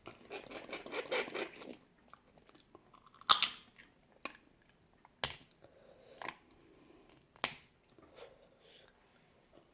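Eating boiled crawfish: crackling as shell is broken and chewed for the first two seconds, then sharp single clicks about once a second, the loudest about three seconds in.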